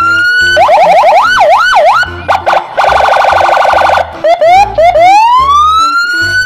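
Police car's electronic siren switching through its tones. It starts with a short rising tone, then fast yelps that slow into wider sweeps and a brief steady note. After that comes a rapid warble for about a second, a few short rising chirps, and finally a slow rising wail.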